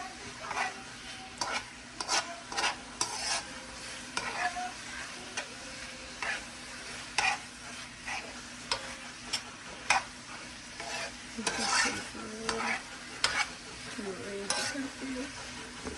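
Curry chicken being stirred in a pot: a utensil scraping and knocking against the pot in irregular strokes, about one a second, over a steady sizzle of frying.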